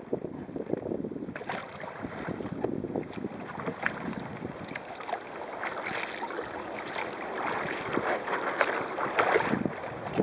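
Water splashing and slapping against the wooden hull of a sailing kayak driven through choppy water in strong wind, with wind buffeting the microphone. The splashes come thicker after about a second and a half.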